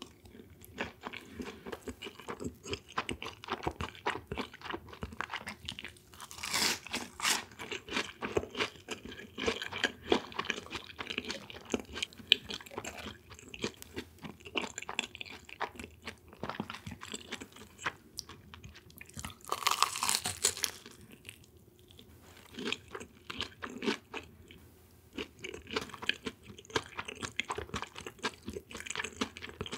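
Close-miked chewing and crunching of crispy fried food, with crisp bites and wet chewing going on steadily. Two louder, brief bursts come about six and a half and twenty seconds in.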